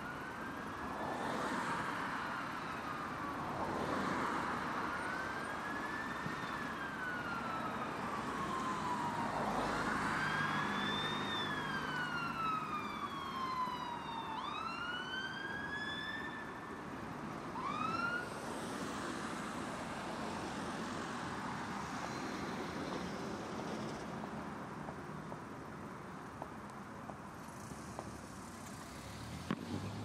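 Emergency vehicle siren on a slow wail, rising and falling every few seconds, switching to a few quick rising whoops about 14 seconds in and stopping about 18 seconds in. Road traffic noise runs underneath.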